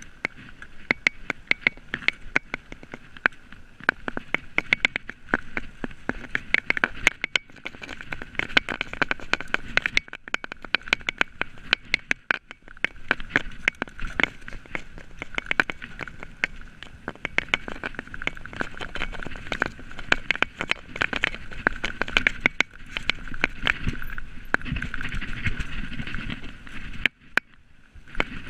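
Mountain bike riding fast down a rough dirt trail, heard from a camera on the bike: constant rattling and clattering of the bike over bumps, with tyre rumble on dirt and wind noise. The clatter dips briefly near the end.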